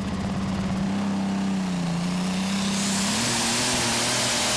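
Competition pulling tractor's engine running at the start line, then about three seconds in it is opened up as the tractor pulls away with the sled: the engine note steps up and a rising high whine and rushing noise come in.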